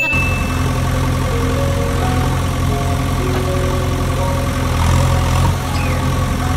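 Truck engine running at a steady, even low rumble that cuts in abruptly. It plays for the toy RC army truck as it drives, with faint music notes underneath.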